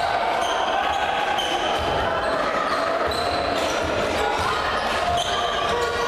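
Basketball game sounds: a ball bouncing on the hardwood court in irregular dull thuds, short high shoe squeaks, and voices of players and spectators in the hall.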